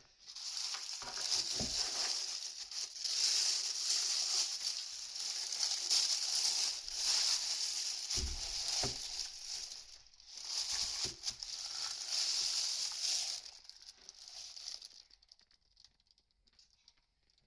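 Plastic packaging rustling and crinkling as it is handled and pulled off, in two long stretches with a short break about ten seconds in. A soft thump about eight seconds in.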